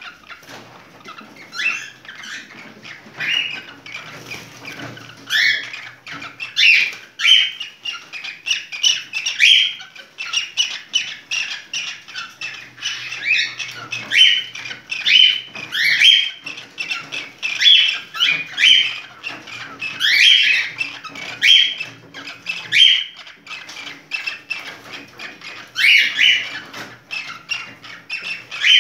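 Cockatiel in breeding condition calling: a rapid stream of short, rising squawky chirps and whistles, several a second, with louder squawks in between.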